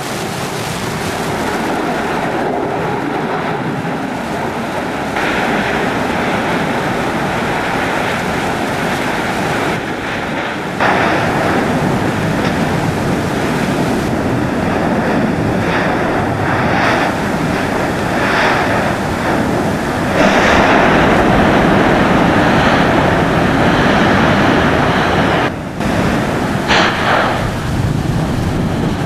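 Mount Yasur's active crater erupting: a continuous rushing rumble of its vents degassing and throwing out glowing lava. It grows louder about eleven seconds in and again about twenty seconds in.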